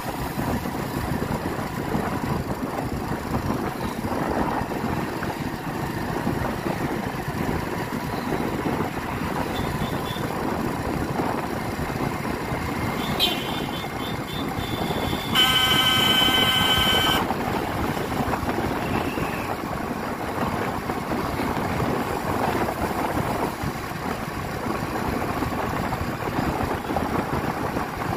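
Motorcycle running along a road, its engine mixed with a steady rush of wind and road noise. About halfway, a vehicle horn sounds for nearly two seconds; it is the loudest thing.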